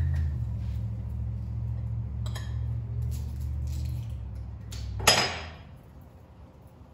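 Small hard objects handled on a workbench: a few light clicks, then one sharp clink with a brief ring about five seconds in. A steady low hum stops at the same moment.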